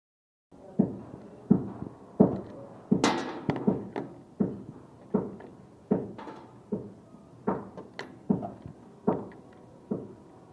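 A steady series of sharp knocks, about one every two-thirds of a second, each dying away quickly, a few with a short ringing tail.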